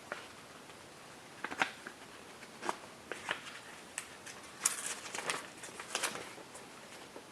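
Paper pages of an instruction booklet being handled and turned: a run of short, irregular rustles and light clicks, busiest in the second half.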